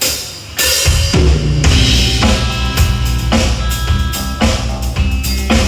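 A live band plays during a sound check: a drum kit with bass drum, snare and cymbals over a bass line. Held pitched notes from another instrument join about two seconds in.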